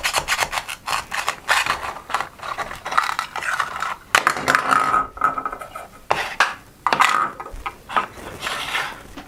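A toy knife cutting apart a velcro play-food guava: the velcro halves rasp as they tear apart, followed by scattered clicks and clatter of the hard toy pieces and knife.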